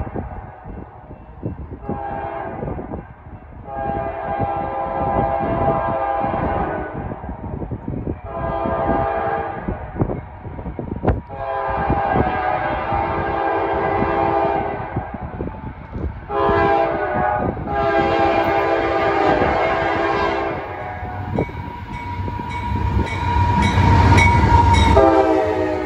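Freight locomotive horn on a CSX intermodal train blowing a string of short and long blasts as the train approaches. Near the end the lead locomotive passes close with loud engine and wheel rumble, and the last long blast drops in pitch as it goes by.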